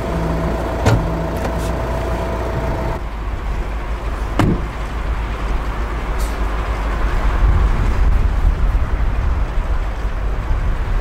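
Volkswagen Caravelle T6's 2.0 TDI diesel idling with a steady low rumble. The hood release lever clicks about a second in, and a door thuds shut about four and a half seconds in.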